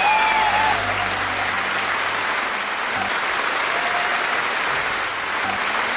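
Large audience applauding steadily at the end of a live song performance.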